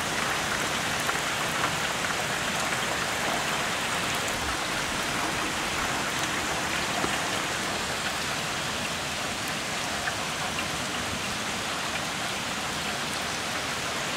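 Heavy rain pouring steadily onto trees, lawn and a paved driveway: an even hiss with a few faint drop ticks.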